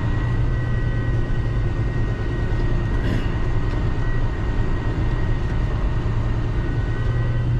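Volvo A40 articulated dump truck's 13-litre diesel engine running steadily as the truck drives, heard from inside the cab, with a faint steady high whine over the low engine drone.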